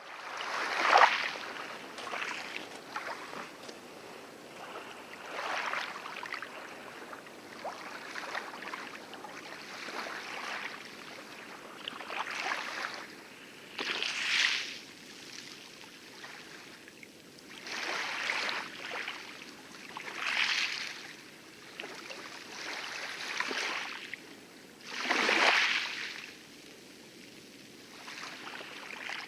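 Light waves lapping and splashing on the coral reef edge of a lagoon, in irregular washes every two to four seconds, over a steady hiss of distant heavier surf.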